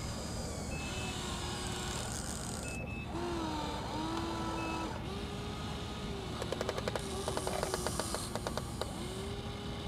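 Electric motors of radio-controlled Huina excavators whining as the arms and buckets move, the pitch sliding up and down and stopping and starting with each movement. A quick run of rattling clicks comes about seven seconds in.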